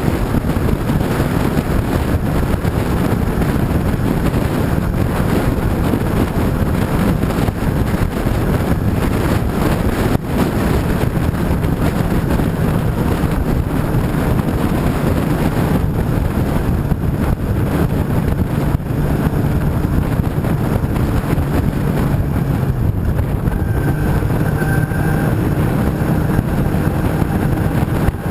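Steady rush of wind over the microphone with a motorcycle engine running underneath, as while riding. A faint steady engine tone comes through more clearly near the end.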